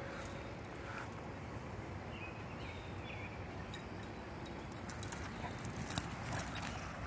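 Steady outdoor background noise on a lawn, with a few soft thumps and rustles in the last couple of seconds as a dog runs across the grass close by.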